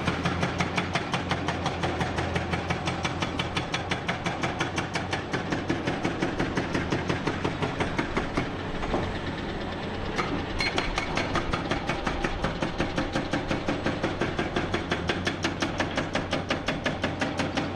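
Heavy diesel construction machinery running, with an even rapid pulsing beat of about four to five pulses a second that eases briefly about halfway through.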